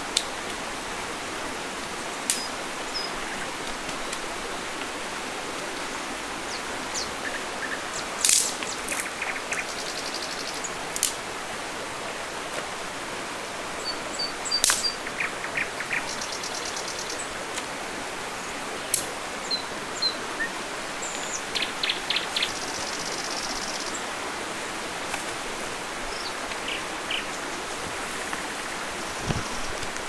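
Dry sticks clacking and snapping as kindling is laid in a stone fire ring: a dozen or so sharp, scattered cracks and knocks. Under them runs a steady rush of stream water, with a few short bird chirps.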